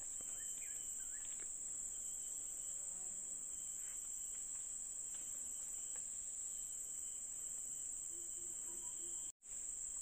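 Steady, high-pitched chorus of forest insects, a continuous shrill drone that breaks off for a moment near the end.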